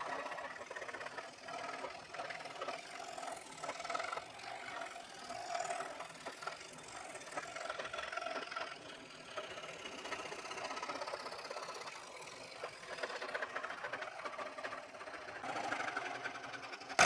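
Scroll saw running, its blade stroking rapidly up and down as it cuts.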